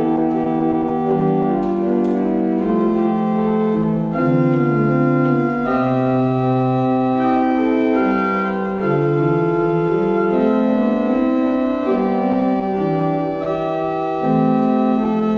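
Organ music: slow, sustained chords in several parts, each held for a second or two before moving to the next.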